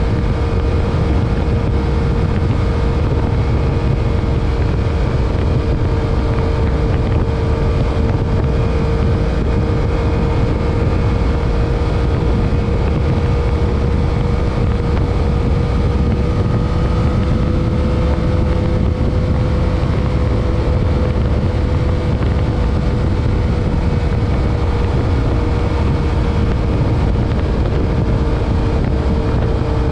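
Stock 2021 Yamaha MT-09's inline three-cylinder engine running at a near-constant speed while cruising, heard onboard with heavy wind buffeting on the microphone. The engine note holds steady, rising only slightly in pitch and easing back near the end.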